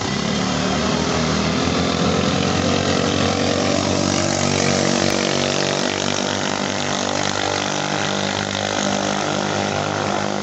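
Small single-cylinder engines of ketinting racing boats running steadily at high power.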